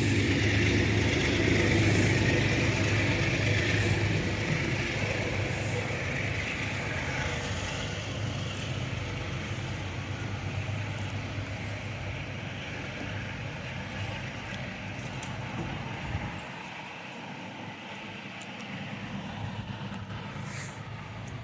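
A diesel-hauled train running past and pulling away, its engine hum and wheel-and-rail noise fading steadily as it recedes.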